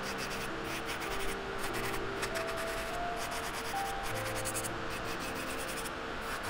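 Izumi M Control Pro electric nail drill with a sanding bit grinding gel off a fingernail, a steady rubbing, scraping sound, over the rush of a nail dust collector fan that has been turned down. Soft background music plays along with it.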